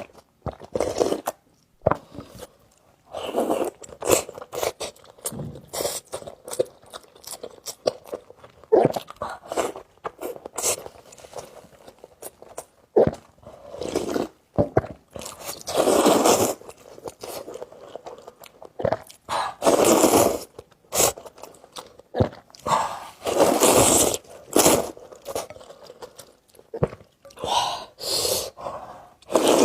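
Close-miked eating of spicy wide noodles: irregular chewing and wet mouth sounds, with several longer noisy bursts along the way.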